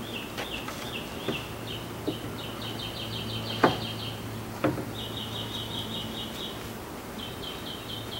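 Two sharp wooden knocks about a second apart as a wooden ramp plank is lifted off the roof rack. A bird chirps in quick repeated runs of high notes, over a steady low hum.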